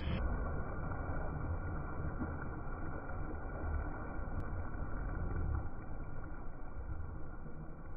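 Shallow sea water splashing and churning as people wade and plunge through it, over a steady low rumble.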